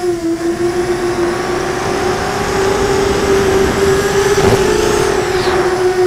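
Brushless motors and propellers of a QAV 250 racing quadcopter (DYS 2300kv motors) whining in flight, heard from the onboard camera. The tone holds a steady pitch that wavers slightly about two thirds of the way through, over a constant hiss of rushing air.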